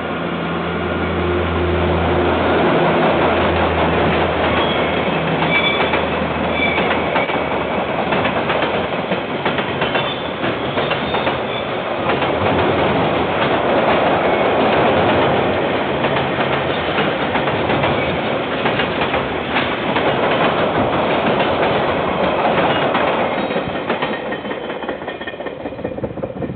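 KiwiRail diesel freight train passing close by. A deep, steady locomotive engine drone fills the first several seconds. Then the container wagons roll past with a dense rumble and repeated wheel clicks over the rail joints, fading near the end.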